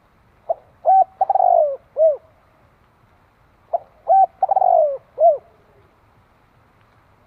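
Spotted dove cooing its song twice, about three seconds apart. Each phrase is a brief opening note, a coo, a longer coo that falls in pitch, and a short closing coo.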